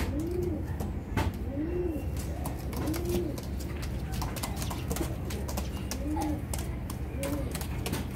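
Gulwy (Galwe) domestic pigeons cooing: short low coos that rise and fall, each under half a second, about a second apart, with a pause midway before two more. Scattered light clicks run underneath.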